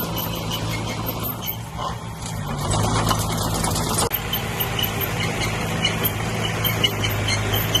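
Diesel engine of earthmoving machinery running steadily. It dips briefly about two seconds in, then picks up and runs louder.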